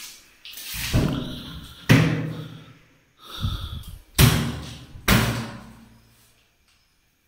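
Plastic-wood (PVC) wall cabinet doors being swung shut, four sharp bangs about a second or two apart, each dying away quickly.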